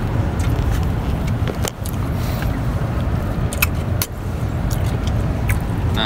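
Lincoln Navigator SUV driving, heard from inside the cabin: a steady low rumble of engine and road noise, with several sharp clicks and knocks scattered through it.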